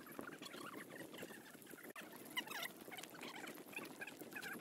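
Faint scattered high chirps and squeaks of small birds, with a short run of falling chirps about halfway through, over a light outdoor hiss.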